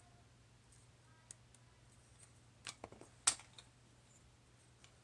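Plastic Lego bricks clicking and clacking as they are handled and pressed together: a single click about a second in, then a quick cluster of clicks around three seconds in, the last the loudest.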